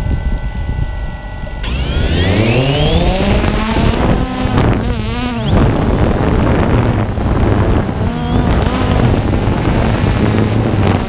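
DJI Phantom 2 quadcopter's motors and propellers, idling on the ground, then spinning up sharply a little under two seconds in, with a rising whine as it lifts off. After that comes a steady insect-like buzz whose pitch wavers as it flies, picked up by the camera on the drone itself.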